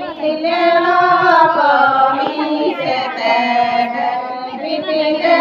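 A group of women singing a traditional Ho wedding song together, with long held notes that glide up and down and no drum.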